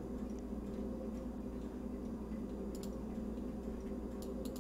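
Computer mouse clicks over a steady low hum: a click nearly three seconds in and two more close together near the end.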